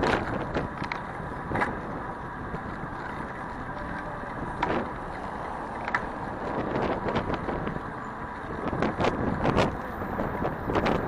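Steady street-traffic and riding rumble heard from a moving bicycle in city streets, with scattered sharp clicks and knocks, more frequent near the end.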